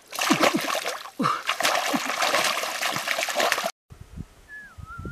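Hands splashing and sloshing in shallow muddy water, groping for fish, in a dense run of irregular splashes. It cuts off suddenly; near the end a single thin, slightly wavering whistle begins.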